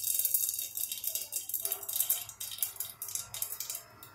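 Mustard seeds spluttering in hot oil under a steel lid: a dense, irregular crackle of tiny pops that thins out near the end. This is the tempering (tadka) stage, when the seeds must pop well before asafoetida goes in.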